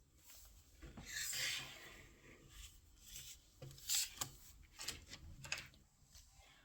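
Hands handling blind-box toy packaging: a rustle about a second in, then a few sharp clicks and taps.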